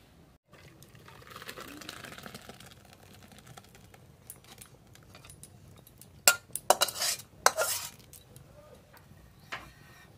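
Split milk being poured from a metal wok into a straining cloth, a hissing pour about a second in. From about six to eight seconds in, a metal spatula scrapes and clanks sharply against the wok, scraping out the last curds for homemade paneer.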